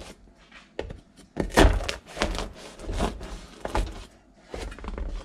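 A large kitchen knife cutting through a freshly baked focaccia with a crisp crust in a metal baking tray: a string of irregular crunches and knocks, the loudest about a second and a half in.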